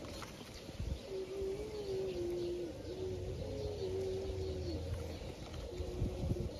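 A dove cooing, low drawn-out notes that step down in pitch, repeated several times, with a few soft handling knocks.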